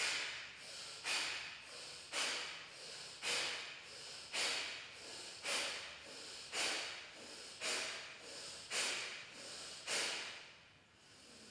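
Kapalbhati breathing through the right nostril alone: ten sharp, forceful nasal exhalations about once a second, each fading off into a softer passive in-breath.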